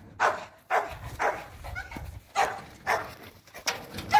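Dog barking repeatedly: a run of about six sharp barks, roughly one every half second to second.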